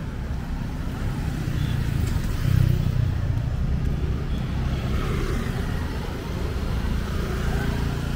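Road traffic dominated by a heavy truck's engine, a low rumble that swells as the truck draws alongside, loudest about two and a half seconds in, mixed with motorcycle engines.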